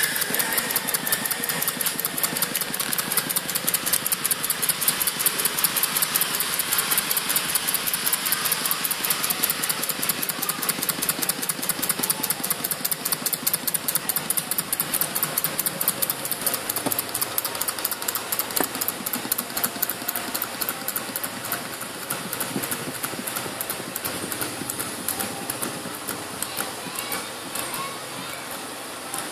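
Homemade soda-can Stirling engine running, its wire crank and linkage clattering in a fast, even rhythm of several clicks a second. The clatter grows weaker over the last few seconds.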